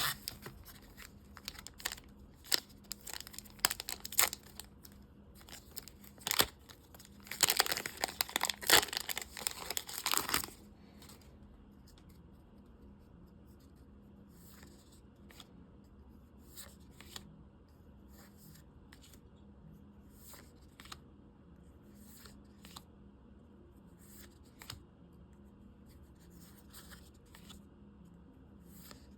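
Trading-card booster pack wrapper being torn open and crinkled. The tearing and crinkling is densest for a few seconds about a third of the way in, then gives way to scattered soft clicks and rustles of cards being handled.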